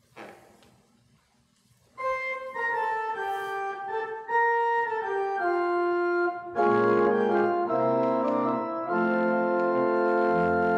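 Church organ starts about two seconds in, playing a melody in held, steady notes that step downward, then fuller chords about two-thirds of the way through: a short introduction before the sung psalm.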